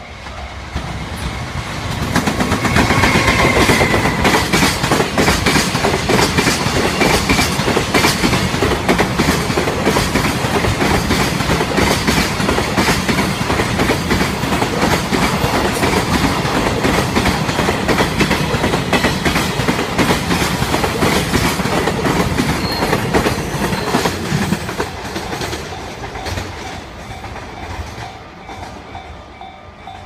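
A container freight train hauled by a JR Freight EF210 electric locomotive passes close by, its wagons clattering over the rail joints for about twenty seconds before fading away near the end. A level-crossing warning bell rings steadily under it.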